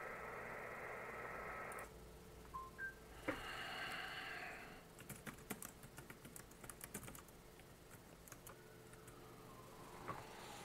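Faint hiss of a Yaesu FT-817's receiver audio carrying a PSK31 signal, cutting off about two seconds in as the rig goes to transmit. After that, a computer keyboard typing in quick bursts.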